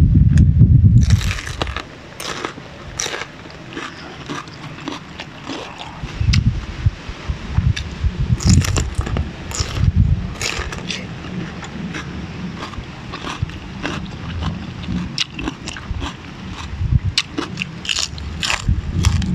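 Raw bitter melon (ampalaya) being bitten and chewed close to a clip-on microphone: crisp crunches and wet chewing clicks. A low muffled rumble fills the first second and a half.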